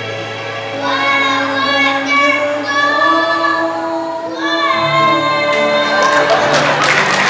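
Preschool children singing a song over a musical accompaniment with a steady low held note, one child's voice loud and close. About six seconds in the song ends and applause begins.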